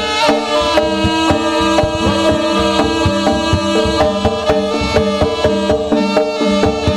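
Live Javanese jaranan-style ensemble music for a bantengan dance: hand drums beat a quick, dense rhythm under a held melodic line.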